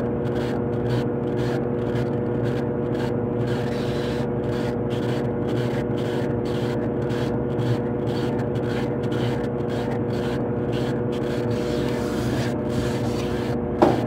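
Brastemp BWK12 top-load washing machine in its spin cycle: the basket spinning at speed with a steady motor hum and whir. A single brief knock near the end.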